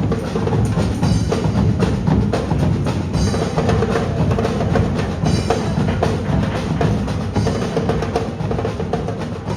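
Background music with a steady, knocking percussion beat.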